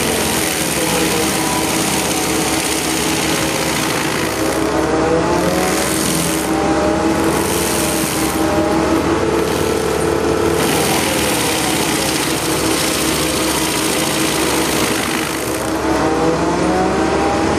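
An FAE SCM excavator-mounted stump cutter grinding into a tree stump: a loud, steady machine noise with a constant hum, its pitch repeatedly dipping and rising again as the cutter works through the wood.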